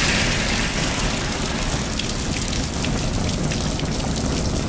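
Steady rain falling, an even hiss with scattered sharp drop ticks from about halfway in.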